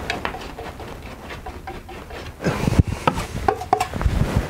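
Large palette knife dabbing and scraping thick oil paint onto a stretched canvas: soft rubbing, then a run of knocks and taps against the canvas from about halfway through.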